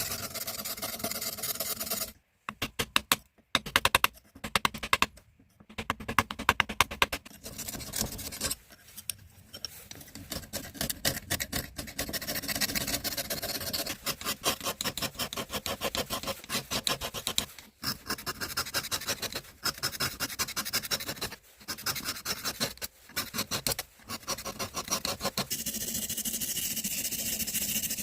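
Rapid back-and-forth rubbing strokes working rust off a steel hammer head by hand, in bursts with short pauses between them. A steadier hiss fills about the first two seconds and returns near the end.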